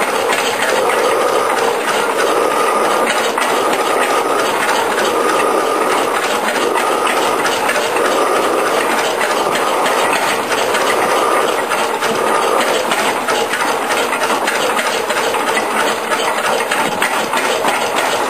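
1910 Hornsby 2 hp single-cylinder hot-bulb engine running, a steady mechanical clatter of rapid clicks.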